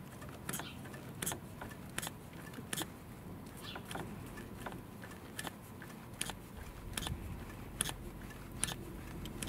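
Hand-held pressure pump with gauge being squeezed stroke after stroke, giving a sharp click about every three-quarters of a second. The strokes build pressure in the turbo's wastegate actuator capsule to check that the wastegate opens.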